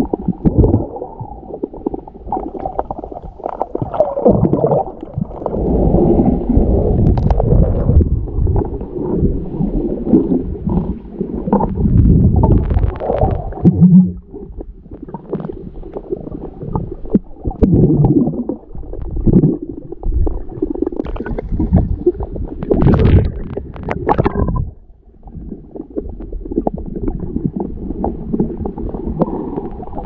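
Muffled underwater sound as picked up by a camera held underwater: water moving and gurgling around the diver and the camera, uneven in loudness, with scattered small knocks and clicks.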